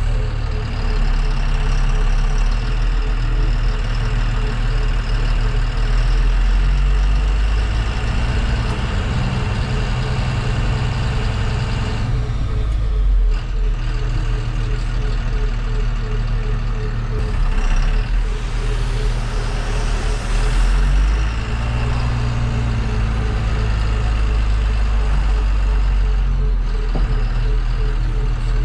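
Tata tipper truck's diesel engine running as the truck reverses, heard from inside the cab, its note changing as the driver works the throttle. A rapid, regular beeping runs throughout, and a hiss rises around twenty seconds in.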